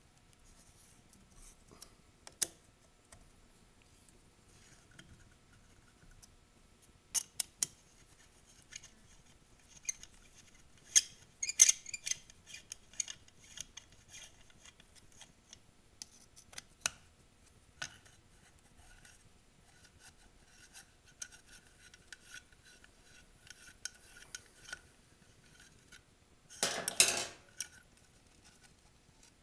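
Sporadic metallic clicks and clinks of a hex key working out the two 4 mm bolts that hold the muffler on a two-stroke string trimmer engine, with a brief louder rattling clatter near the end.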